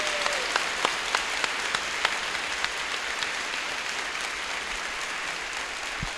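Audience applauding: many people clapping together, with individual sharp claps standing out, easing slightly near the end.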